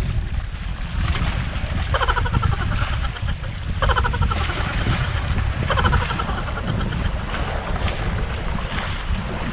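Wind buffeting the microphone over small waves washing against shoreline rocks. Three short pulsing sounds come about two seconds apart.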